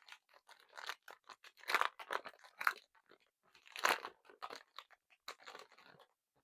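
Chocolate bar wrapper being torn open and crinkled: a run of quick, irregular crackles, with three louder tearing bursts in the middle.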